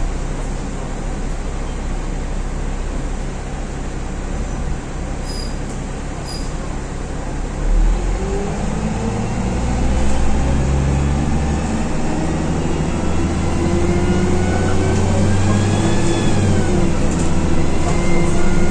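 Dennis Dart SLF single-deck bus engine, heard inside the passenger saloon. It runs low and steady for the first half, then the engine note climbs steadily as the bus accelerates, dipping once briefly near the end before rising again.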